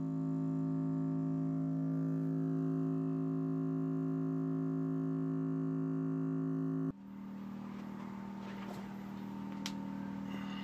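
Vibrational sled's galvanized metal pail resonator humming with a steady drone, cutting off abruptly about seven seconds in; a quieter, steady hum follows as the sled runs loaded with a cement boulder.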